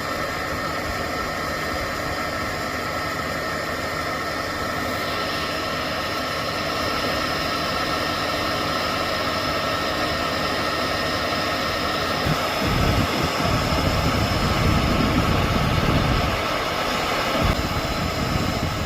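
Heat gun blowing steadily with a fan whine, shrinking heat-shrink tubing over freshly soldered wire joints. A low rumble joins in for a few seconds in the last third.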